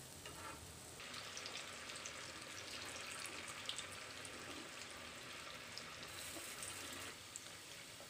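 Batter-coated paneer pieces deep-frying in hot oil in a steel kadai: a faint, steady sizzle with fine crackles. It grows louder about a second in and drops back abruptly about a second before the end.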